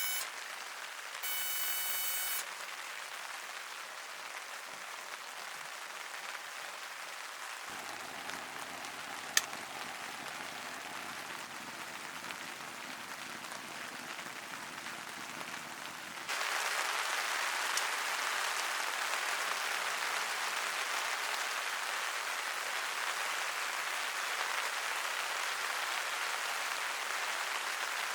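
Rain falling steadily, an even hiss that gets clearly louder a little past halfway. A brief ringing tone sounds about a second in, and a single sharp click near the middle.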